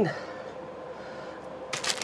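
Clear plastic bag rustling as it is handled, starting near the end, after a stretch of quiet room tone.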